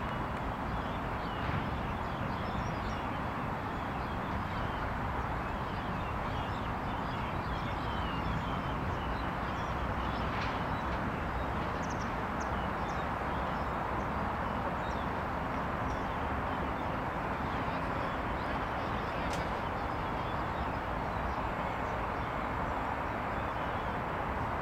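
Steady outdoor background noise, a low rumbling hiss, with faint short high chirps scattered through it.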